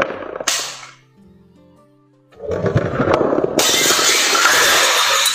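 Glass bottles filled with coloured liquid shattering and clinking as a steel ball smashes into the bottom of the stack, starting a little before halfway and growing brighter and louder near the end, over background music.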